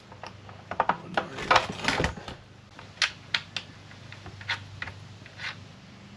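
Irregular clicks and light knocks of hard plastic parts being handled and snapped into place on a snowmobile ski, a quick cluster in the first couple of seconds and then single clicks.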